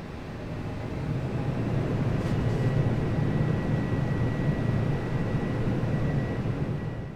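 Embraer E175 cabin noise during take-off: the low rumble of the jet's engines and airflow builds over the first second or so, then holds steady and loud. A thin, steady high whine joins about two seconds in.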